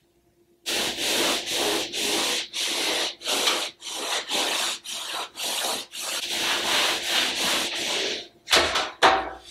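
Cloth rag wiping a painted wall in quick back-and-forth strokes, about two a second, cleaning off dust and cobwebs so the wallpaper will stick. Near the end come two louder knocks.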